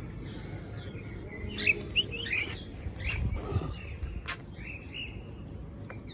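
Birds chirping: a quick run of short calls starting about a second and a half in and lasting about two seconds, with a few faint calls later. A few sharp knocks come along with the calls, and one more near the end.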